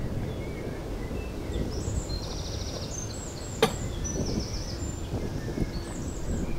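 Footsteps on a gravel drive under a steady low rumble, with small birds chirping and trilling. About three and a half seconds in comes a single sharp click from the latch of a wooden field gate.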